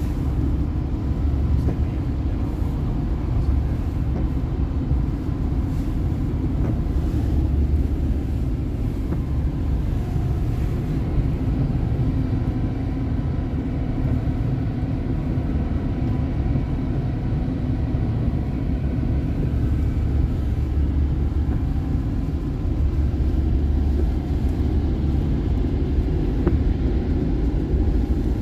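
Car driving on a highway: a steady low rumble of road and engine noise that holds even throughout.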